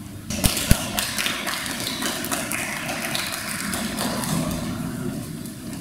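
Audience clapping, with two sharp thumps just after it starts, then dying away near the end.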